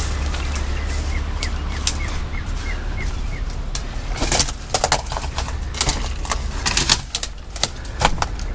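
Footsteps crunching and snapping through dry brush, twigs and dead branches, crackling most densely in the second half. Between about one and three and a half seconds in, a bird gives a run of short chirps, about three a second, over a low steady hum.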